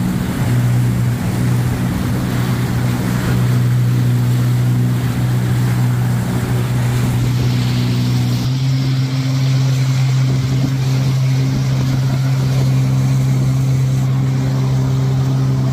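Jet ski engine running at a steady speed over the hiss of rushing water. About halfway through, the engine note rises a little and gets stronger.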